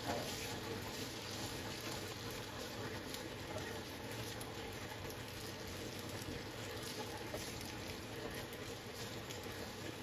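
Food cooking in a pan on the stove: a steady, faint crackling hiss, with a light knock right at the start.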